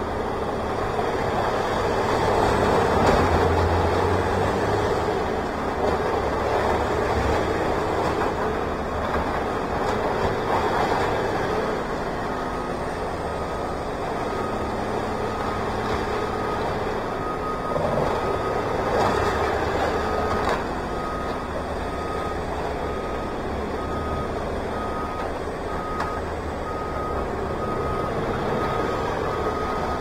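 Heavy diesel machinery running steadily at a work site. About twelve seconds in a backup alarm starts and beeps about once a second: a machine is reversing.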